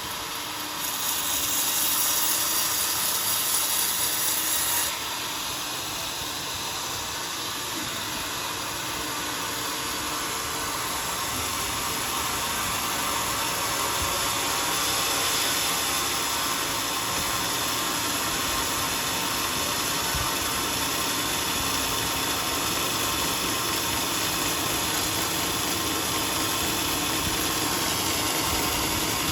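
Sawmill bandsaw running through coconut wood, a steady mechanical whirr with a louder, hissier stretch for a few seconds about a second in.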